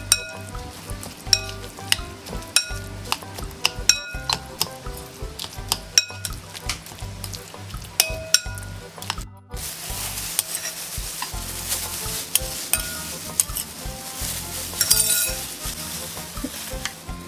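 A metal spoon stirring a thick mash of banana and oats in a glass bowl, clinking sharply against the glass every second or so, with each clink ringing briefly. After a break about nine and a half seconds in, a crackly rustle of plastic food-prep gloves handling the mix and paper cups.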